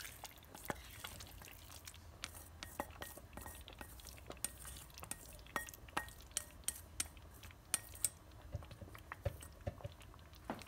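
Scattered, irregular light clinks and taps of a utensil against a cooking pot as pieces of fish are put into a pot of congee, over a faint steady low hum.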